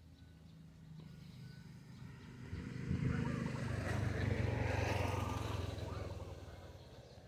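A motor vehicle passing by on the road: its engine and tyre noise swell up about two and a half seconds in, are loudest for a few seconds, then fade away.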